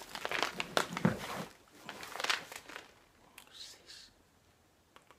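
A plastic dog-treat pouch crinkling and rustling as it is handled. The sound comes in quick bursts over the first couple of seconds, then thins out to faint rustles.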